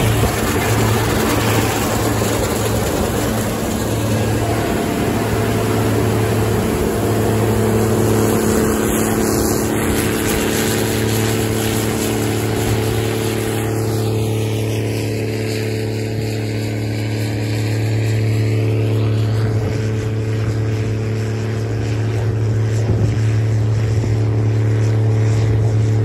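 Gleaner combine harvester running while cutting wheat: a steady deep engine hum with higher droning machine tones over rushing noise.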